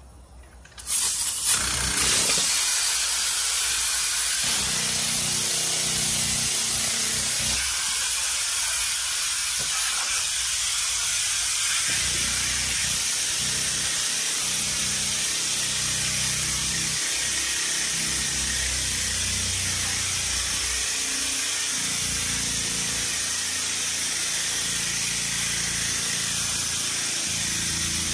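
Compressed-air hiss from the air-over-hydraulic pump of a frame-pulling machine, starting abruptly about a second in and running steadily, with a low hum underneath that changes every few seconds as the pump works against the pull.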